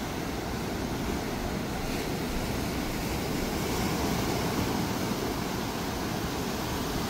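Steady rushing outdoor noise with a ragged low rumble.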